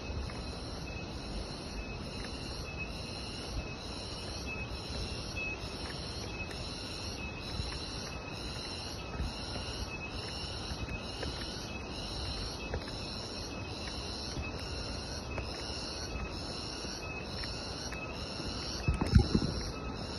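Insects calling in a steady, evenly repeating high pulse, with one louder thump near the end.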